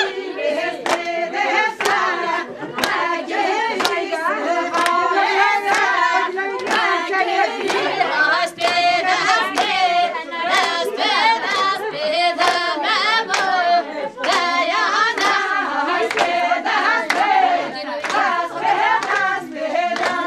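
A group of women singing together, with hand clapping keeping a steady beat.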